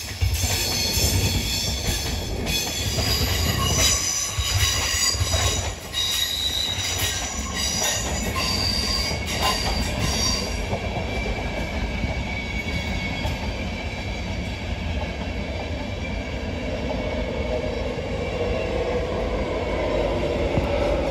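Steel wheels of a passenger train squealing in several high-pitched tones as it moves slowly through station pointwork. The squeal fades about halfway, leaving the steady running noise of a train passing on the rails.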